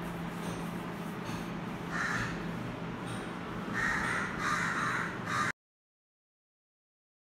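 Several harsh animal calls, the first about two seconds in and then two close together around four to five seconds, over a steady low hum. The sound cuts off to dead silence about five and a half seconds in.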